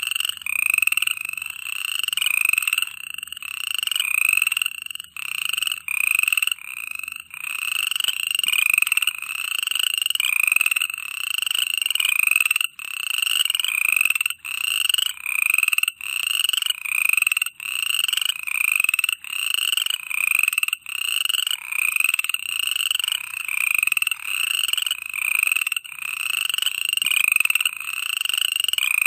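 Chorus of frogs calling close by, about once a second, each call swelling and then breaking off. A steady high-pitched ringing runs above the calls.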